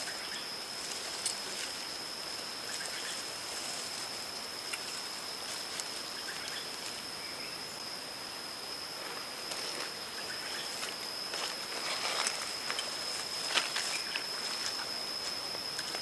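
Leafy fruit-laden branches rustling and snapping lightly as they are handled and packed into a wicker basket, in scattered short crackles that come more often in the second half. Behind them, a steady high-pitched insect drone holds one unchanging tone throughout.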